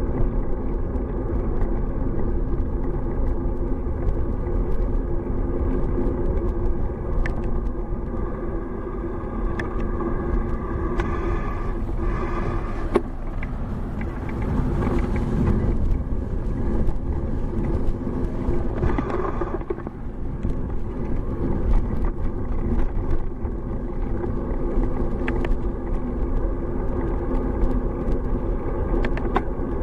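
Steady low rumble of wind and road noise on a bike-mounted camera's microphone while riding. Cars pass in the middle, a swell of traffic noise that rises and fades.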